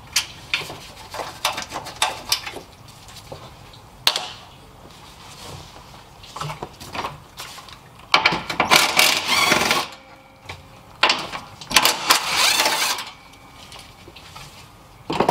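Hand tools and a power tool removing the bolts that hold a car's upper radiator support: scattered sharp clicks, then two bursts of rapid mechanical rattling, about a second and a half each, after about eight seconds and again after about twelve.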